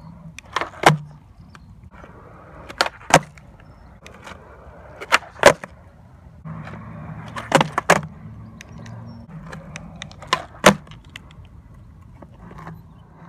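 Skateboard on concrete: wheels rolling with a steady low rumble, broken five times by a pair of sharp cracks about a third of a second apart, the tail popping off the ground and the board landing on flatground tricks.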